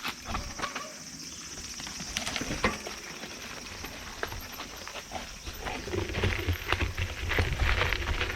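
Mountain bike ridden over a rough dirt trail, the bike knocking and rattling irregularly over bumps. A low rumble joins about six seconds in.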